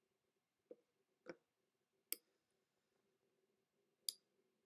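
Four faint, sharp computer mouse clicks, irregularly spaced, over a faint steady hum of room tone.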